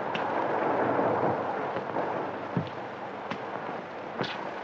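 A train running, heard as a steady rushing noise that swells about a second in, through the hiss of an old film soundtrack with scattered clicks and crackles.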